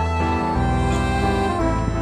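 Instrumental background music: sustained notes over a low bass line that changes every half second or so.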